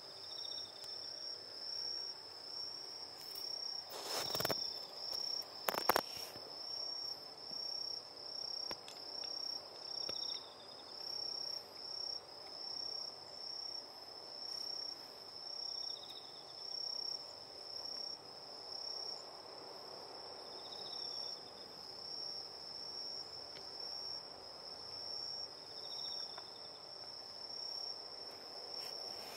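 Crickets chirping: a steady high-pitched trill, with a fainter second chirp coming in about every five seconds. Two sharp clicks about four and six seconds in.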